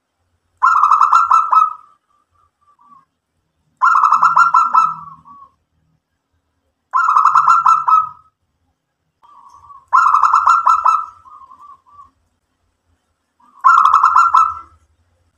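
Zebra dove (local perkutut) cooing: five loud, rapidly pulsing coo phrases, each a little over a second long, repeating about every three seconds.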